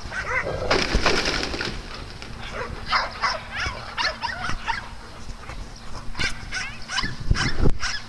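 A pack of dogs in rough play: short barks, yips and whines from several dogs, scattered through, with quick rises and falls in pitch.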